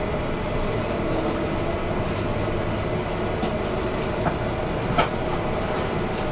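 Inside a moving bus: steady engine and road rumble with a faint whine, and two light knocks or rattles about four and five seconds in.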